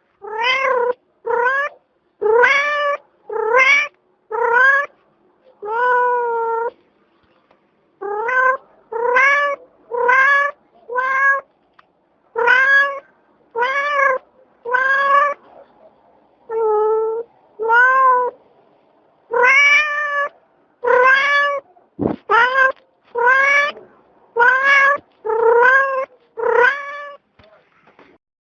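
Cat meowing over and over, about twenty short meows in a row, each rising then falling in pitch.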